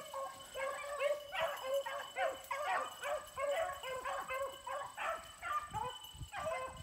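A pack of beagles baying in overlapping voices, a steady run of barks several times a second: hounds giving tongue as they run a rabbit's track.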